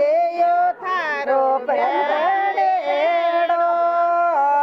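Group of women singing a Rajasthani jawai geet (folk song for the son-in-law) in long, wavering held notes, with no instruments heard.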